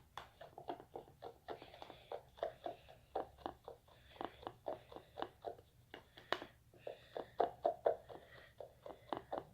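A utensil stirring hand sanitizer slime in a cup, tapping and scraping against the sides in a quick, uneven rhythm of about two to three strokes a second.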